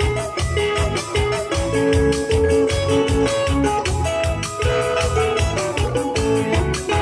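Live band music: a keyboard holding organ-like notes over a quick, steady beat.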